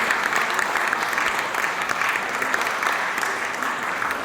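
Audience applauding, steady dense clapping that slowly fades.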